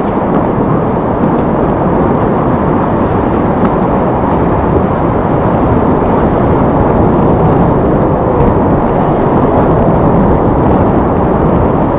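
Steady loud rushing of whitewater river rapids.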